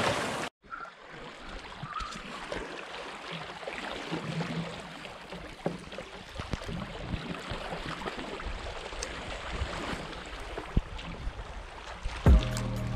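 Small waves lapping and gurgling among the stones at the sea's edge, with a few faint knocks and clicks. Background music comes in with a loud hit near the end.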